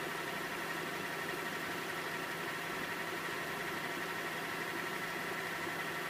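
Video cassette player rewinding a tape: a steady whir with a high, even hum.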